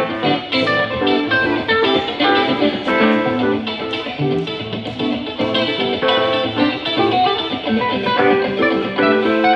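Live band playing a bluesy rock tune: electric guitars picking out single-note lines over an electric keyboard.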